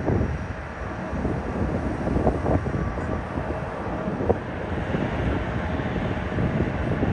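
Wind buffeting the microphone, with a few sharp pops, over a steady rumble of jet aircraft on the airfield. The rumble grows a little fuller about two thirds of the way in.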